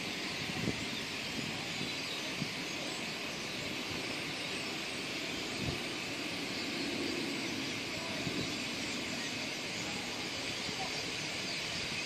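Dense, steady chirping of a large flock of birds circling overhead, over a low background rumble, with a few brief soft thumps.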